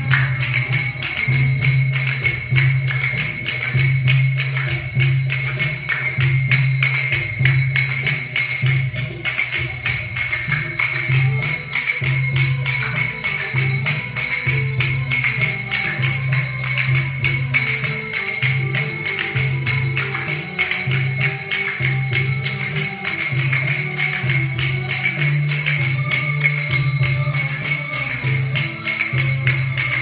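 Large handmade finger cymbals (snujs, zills) struck rapidly and continuously in rhythm, ringing with bright metallic tones, over recorded music with a steady low drum beat.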